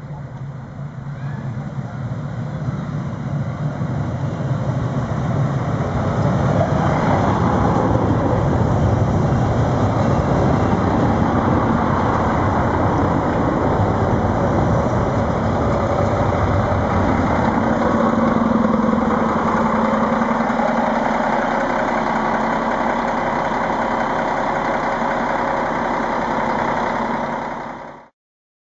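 Stadler Regio-Shuttle RS1 diesel railcars approaching and running close past, with engine and running noise growing louder over the first few seconds and then staying loud and steady. A steady low engine hum comes in about two-thirds of the way through, and the sound cuts off suddenly near the end.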